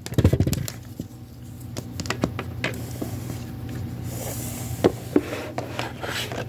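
Handling noise: irregular clicks and knocks of a plastic cable plug being fumbled into the back of a small portable air-conditioner fan, with a short dull bump right at the start.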